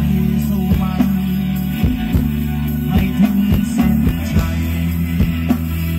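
Live band playing Thai ramwong dance music: electric guitar, bass and drums with a steady beat.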